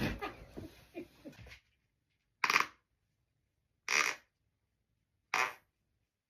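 A rasping fart trails off and fades over the first second and a half. Then come three short, breathy puffs of hiss, evenly spaced about a second and a half apart.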